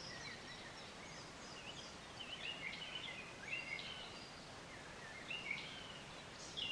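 Small birds chirping, many short calls and quick rising and falling chirps, faint over a low outdoor background hiss.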